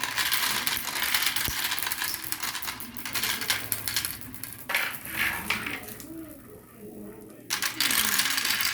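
Marbles clattering and rolling down a marble run: a dense rattle of small clicks. It thins out for a moment about six seconds in, then comes back loud about a second and a half later.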